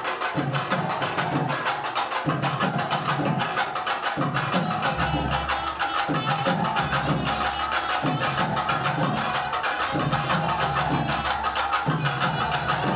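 Festival percussion music: drums struck in a fast, steady rhythm with no let-up, and a pitched line carried over the beat.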